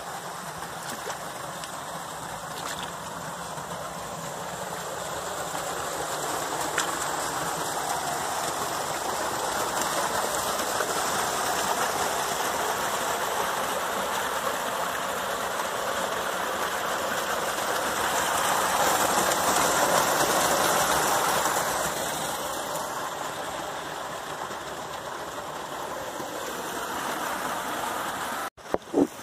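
Small forest creek rushing over mossy rocks in a little cascade: a steady rush of water that swells louder about two-thirds of the way through, then eases off again.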